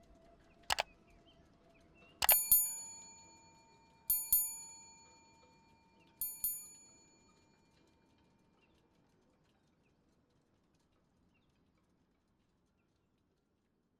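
A small metal bell struck in pairs, three double strikes about two seconds apart, each ringing out and fading, after a sharp double click.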